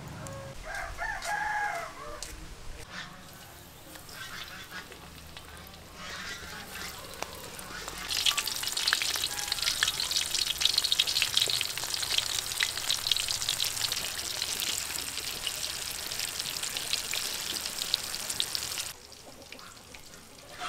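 Rice-paper-wrapped shrimp rolls deep-frying in a wok of hot oil: a loud, dense sizzle and crackle that sets in about eight seconds in and cuts off sharply near the end. Near the start a rooster crows once.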